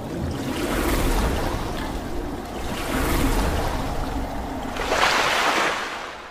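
Rushing, splashing water sound effect that swells twice and then rises to a bigger splash about five seconds in before fading out.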